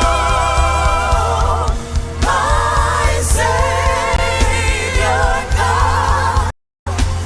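Live gospel worship music: a singer holds long notes with a wavering vibrato over a band with a steady bass beat. The sound cuts out briefly near the end.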